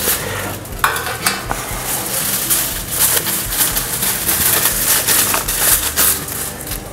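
Aluminium foil crinkling and rustling as a sheet is handled and folded over a baking tray, with irregular sharp crackles.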